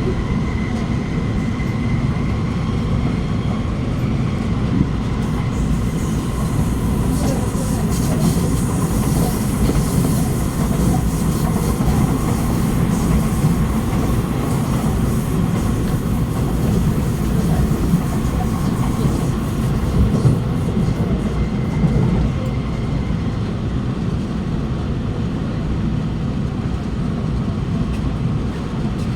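Running noise of an Alstom Movia R151 metro train heard inside the carriage: a steady rumble of wheels on rail with faint steady tones above it. A hiss builds through the middle, and a few short clacks stand out.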